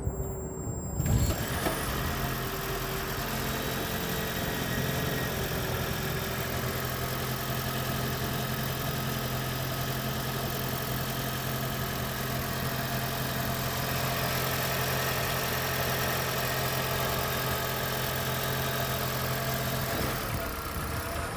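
2010 Toyota Prius's 1.8-litre four-cylinder petrol engine starting about a second in, running steadily, then shutting off near the end.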